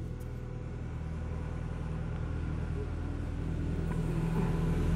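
Steady low mechanical hum with a rumble, gradually growing louder.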